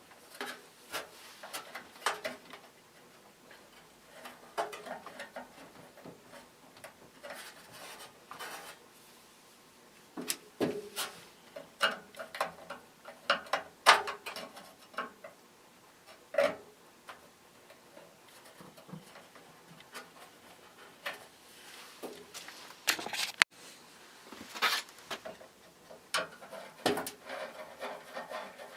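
Hand work on an old metal box fan as its motor is disconnected: irregular clicks, knocks and scrapes of tools and metal parts, with a sharper knock about halfway through and another a little later.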